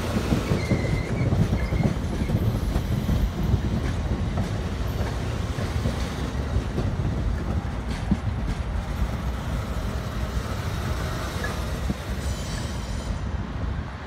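Amtrak Superliner bilevel passenger cars rolling past close by, their wheels rumbling steadily and clacking over the rail joints. A short high wheel squeal comes about a second in.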